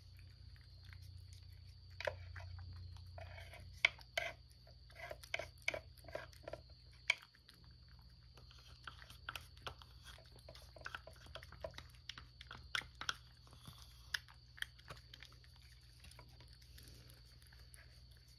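Domestic cat eating wet food (tuna and scallop) from a ceramic dish: irregular wet chewing and lip-smacking clicks, busiest through the first three quarters and thinning out near the end.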